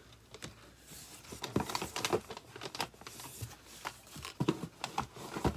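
Products and packaging being handled: scattered rustling with small knocks and clicks, starting about a second in.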